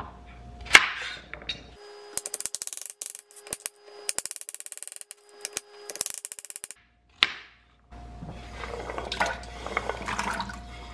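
Chef's knife chopping carrots on a wooden cutting board: a few single knocks, then a long run of quick taps. Near the end comes a rustling splash as the chopped carrots are tipped into the Instant Pot's steel inner pot of broth.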